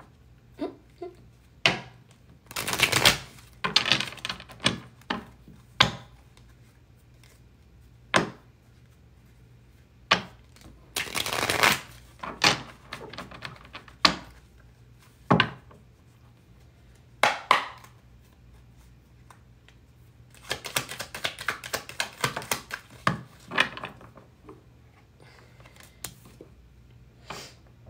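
A deck of tarot cards shuffled by hand, in several quick rattling runs of one to three seconds. Between them the cards are tapped and slapped down on a wooden table in single sharp clicks.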